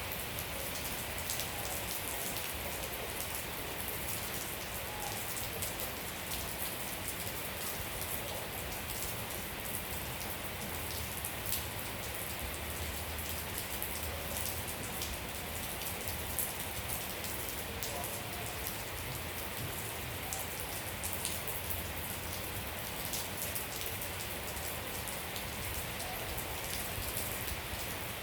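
Steady rain falling, an even hiss with many close, sharp drop taps throughout.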